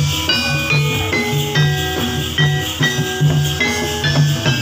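Javanese gamelan music for a jathilan trance dance: ringing metallophone notes carry the melody over a steady low drum beat, with small jingling percussion.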